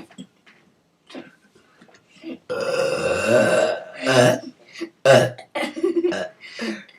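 A person's long, loud burp about two and a half seconds in, lasting over a second, followed by several shorter loud bursts, in a burping contest.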